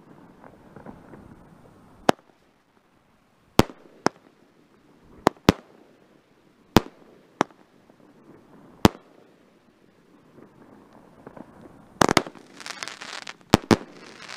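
A 16-shot 500-gram consumer firework cake firing: sharp single bangs every second or two. About twelve seconds in, a quick cluster of bangs gives way to dense crackling, and two more bangs follow near the end.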